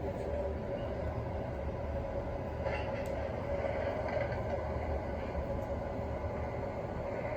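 MTH R12 O-gauge model subway train and its onboard subway sound system running: a steady rumble with a constant hum.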